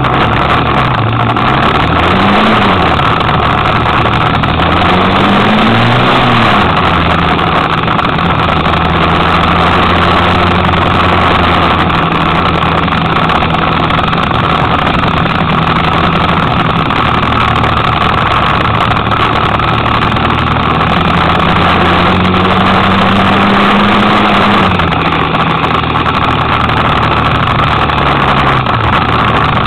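Kymco Quannon 125 cc motorcycle engine under way. Its revs rise and drop twice in the first few seconds, then hold steady, with a slow rise and a drop later on. A steady rush of wind and road noise runs over it.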